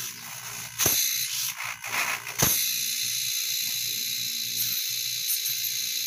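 Refrigerator compressor converted into a vacuum pump, running with a low hum while air hisses steadily through its suction line. A couple of sharp knocks come in the first two and a half seconds, then the hiss settles in and holds.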